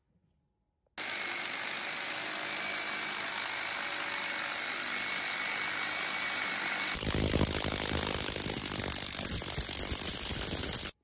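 Corded rotary hammer drill hammer-drilling anchor-bolt holes into a concrete floor through a lift post's steel base plate. It starts abruptly about a second in, runs steadily, turns heavier and deeper about seven seconds in, and stops abruptly at the end.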